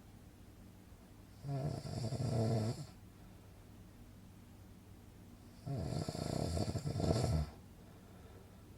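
Snoring: two long snores, one about a second and a half in and one near six seconds, each lasting about a second and a half, with a faint steady hum between them.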